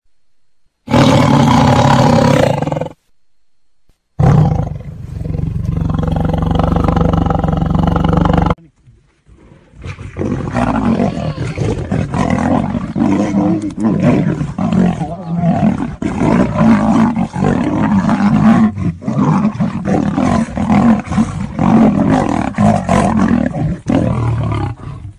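Lion and tiger roaring and snarling. There is a loud roar about a second in, a longer roar from about four to eight seconds, then from about ten seconds on an unbroken run of rough snarls that rise and fall.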